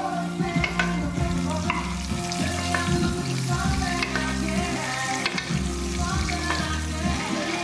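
Bavette steak searing in a hot pan with butter, sizzling steadily with scattered crackles, under background music with a steady bass line.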